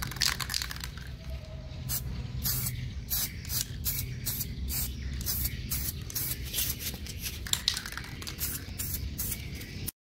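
Aerosol spray-paint can of Sapporo smoke black hissing in a quick series of short bursts, about two a second, as a coat of paint is sprayed on.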